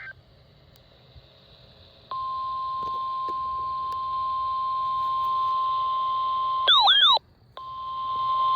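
NOAA Weather Radio warning alarm tone, a steady single tone of about 1050 Hz, comes on over faint radio hiss about two seconds in. It signals a warning broadcast. Near the end it is broken by a short, loud warbling burst of wavering pitches and a brief dropout, then the steady tone resumes.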